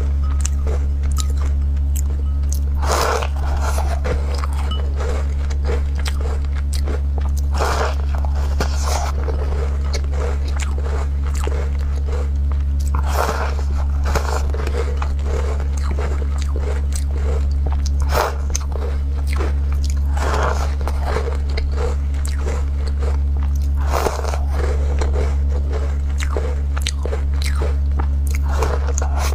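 Close-up eating of walnut cookies: a loud crunchy bite about every four to five seconds, with softer chewing clicks between the bites.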